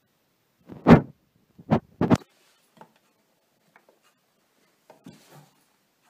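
Four loud thumps: the first, about a second in, is the loudest, and the other three come close together about a second later. A few faint clicks and rubbing sounds follow.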